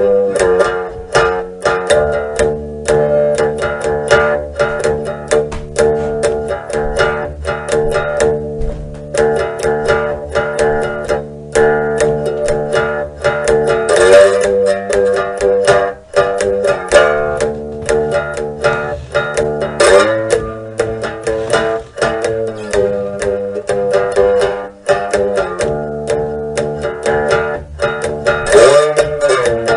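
Background music: an instrumental of fast plucked strings, guitar-like, with a dense run of notes and a few bent notes.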